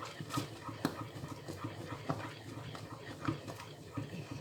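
A wooden spoon stirring stiff maize-meal pap hard in a pot, scraping and knocking against the pot in quick, uneven strokes about twice a second.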